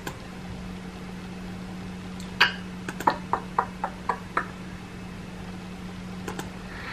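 A quick run of about eight light clicks, a couple of seconds in, with one more near the end, over a low steady hum.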